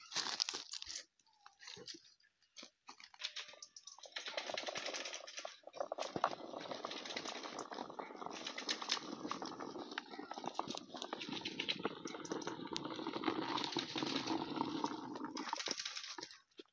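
Olives pouring from a bucket into a plastic crate: a dense, continuous rattle of many small hits. It starts about four seconds in, after a few scattered clicks, and stops shortly before the end.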